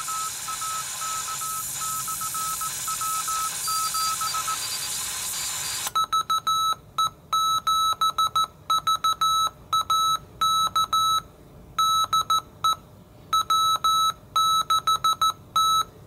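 Shortwave receiver hiss with a faint Morse code signal keying in it for the first four and a half seconds. About six seconds in the hiss cuts off and the PreppComm MMX Nomad QRP HF radio's sidetone sends its automatic Morse code answer: a clean, steady-pitched beep keyed in dits and dahs, on and off, right through to the end.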